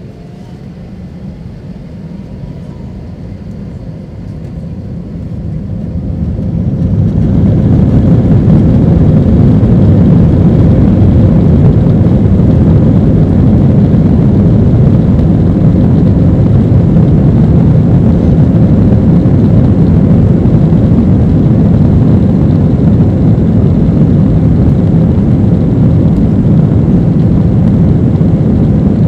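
Airbus A320's IAE V2500 turbofan engines heard from inside the cabin, spooling up to takeoff thrust. A faint rising whine and a growing roar build over about the first seven seconds, then a loud, steady roar with deep rumble holds at takeoff power.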